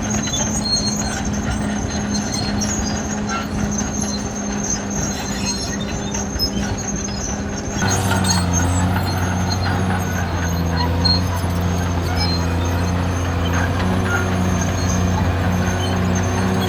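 Caterpillar D6R XL bulldozer's diesel engine running steadily; about eight seconds in the sound changes abruptly to a louder, deeper engine note with a pulsing tone.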